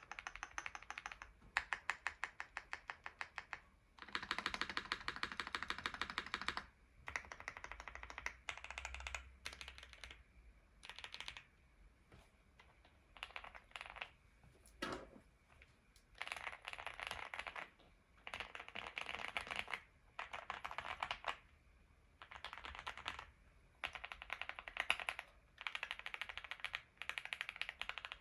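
Typing on an Owlabs Mr. Suit custom mechanical keyboard with lubed and filmed JWK linear switches (Alpaca recolours) on an FR4 plate: bursts of fast keystrokes broken by short pauses, with a single deeper keystroke about halfway through.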